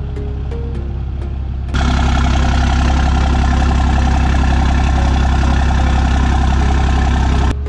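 Ram pickup truck engine running steadily with a fast, even clatter while the truck backs up. It starts abruptly about two seconds in and cuts off just before the end, with background music before it.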